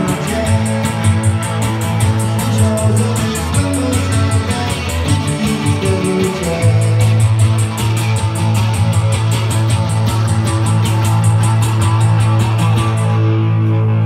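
Lo-fi cold wave band playing live, led by a Fender Jaguar electric guitar over a steady low bass note, with a fast, even high ticking beat that stops about thirteen seconds in.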